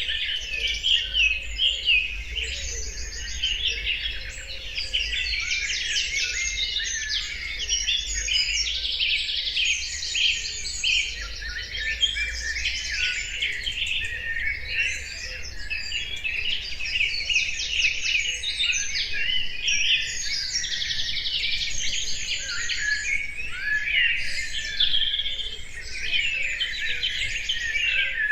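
Many birds singing and chirping at once: a dense, continuous chorus of overlapping high trills and chirps.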